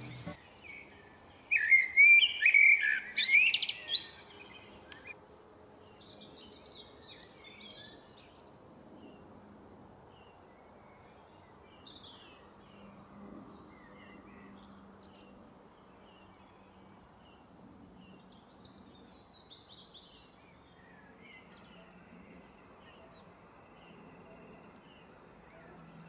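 Birds chirping and calling: a loud run of quick, varied calls about two to four seconds in, then only faint scattered chirps.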